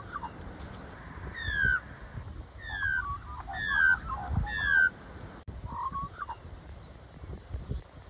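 Australian magpie calling: four short, downward-sliding notes about a second apart, followed by lower, shorter warbled notes.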